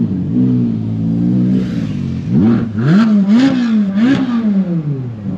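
Car engine being revved: a low, wavering run, then from about two seconds in a quick series of rev blips, the pitch jumping up and falling back about four times before dropping away.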